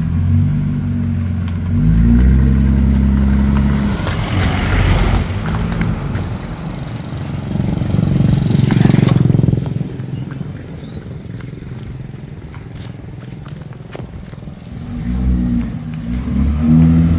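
Car engine running through its exhaust, revved up twice, about four and nine seconds in, with a low steady note between the revs.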